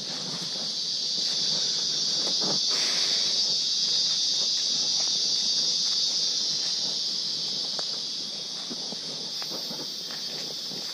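A steady high-pitched insect drone in the forest, swelling over the first few seconds and easing a little near the end, with soft footsteps on leaf litter underneath.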